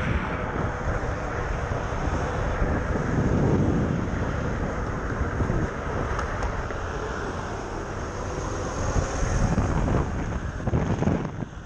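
Wind rushing over the microphone of a camera moving along city streets, mixed with the rumble of traffic and wheels on the road. The sound is steady, with a few louder swells.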